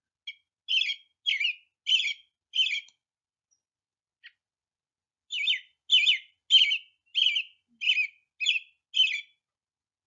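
American robin singing: short whistled phrases in two runs, about five and then about seven, with a pause of two to three seconds between them. This is the caroling phrasing heard as 'cheerily, cheer up, cheerily'.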